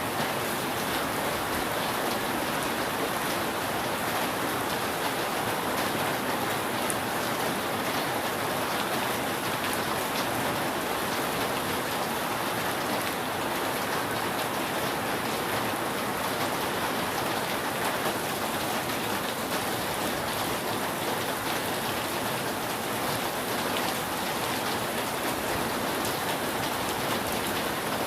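Steady rain falling on a roof: an even, constant patter with no thunder.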